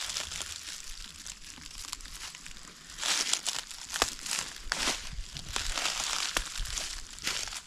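Slow footsteps crunching through dry leaf litter, irregular and louder from about three seconds in, with a few sharp crackles.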